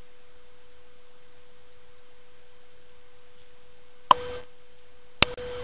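A steady hum held on one pitch over faint hiss, with two sharp clicks about a second apart near the end.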